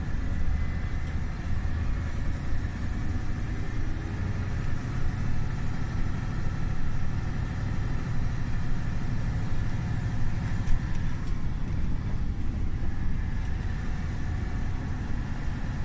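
Vehicle driving on a snow-covered road, a steady low engine and tyre rumble heard from inside the cab.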